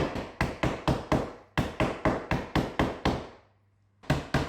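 Rubber mallet rapidly tapping dovetail joints home during a glue-up, about four to five blows a second, with a brief pause about three and a half seconds in.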